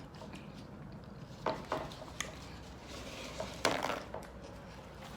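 A fork clicking and scraping in a salad bowl, a few short clicks about one and a half to two seconds in, then a louder crackly crunch about three and a half seconds in as salad is eaten.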